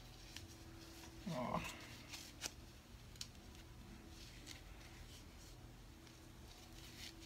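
Faint rustling and light clicks of an Apple Watch Sport Loop, a woven nylon hook-and-loop band, being pulled snug and fastened around a wrist, with one brief louder rustle about a second and a half in.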